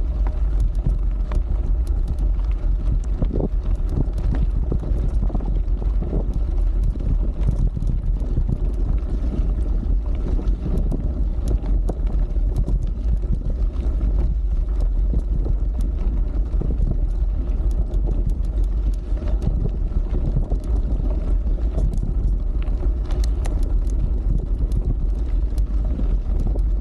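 Wind buffeting the microphone of a handlebar-mounted camera on a moving mountain bike, a steady low rumble. Under it the tyres crunch over a stony dirt track, with many small ticks and rattles of gravel and bike parts scattered throughout.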